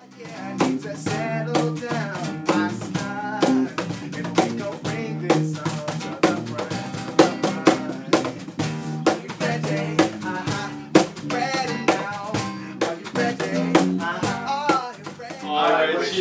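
A small acoustic band playing a song: a man singing lead over strummed acoustic guitar, electric bass guitar and cajón keeping a steady beat. Near the end the playing stops and a voice carries on alone.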